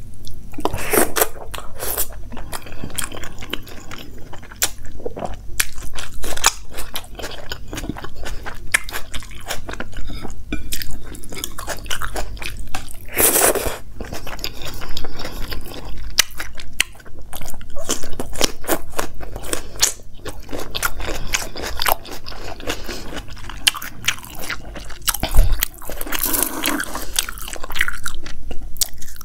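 A person chewing and biting food close to a lavalier microphone, with frequent irregular crunches throughout.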